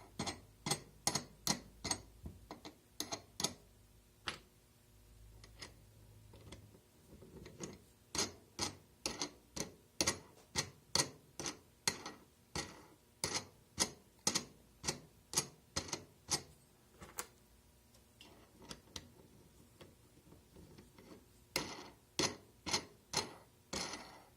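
Metal wing nuts being spun down threaded bolts to clamp a mold frame: a run of sharp metallic clicks, about two a second, that stops and starts again twice.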